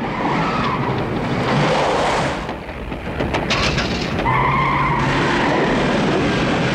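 Car engine running hard, with tyres skidding on a dirt track. About four seconds in, as the ignition key is turned, a steady engine whine starts up and holds.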